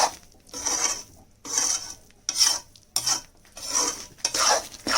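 Spatula stirring and scraping gram flour roasting in ghee in a kadhai. It comes as repeated scraping strokes, about one every three-quarters of a second.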